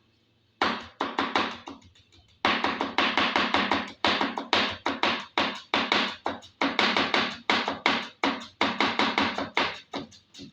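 A kitchen knife chopping carrots fast on a cutting board: quick runs of sharp strikes, about six or seven a second, with brief pauses between runs. The chopping starts about half a second in.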